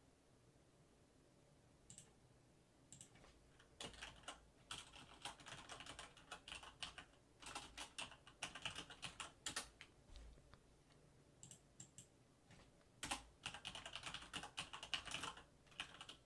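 Typing on a backlit computer keyboard: a few scattered key clicks about two seconds in, then quick runs of keystrokes, a pause of a few seconds around the middle, and another fast run near the end.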